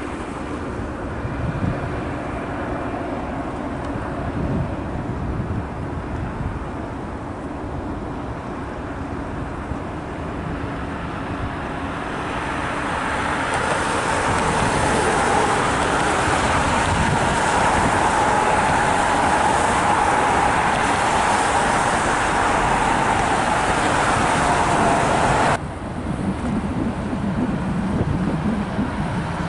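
Road traffic noise that swells over several seconds into a loud steady rush with a slowly falling whine, then cuts off suddenly near the end, leaving a lower traffic rumble.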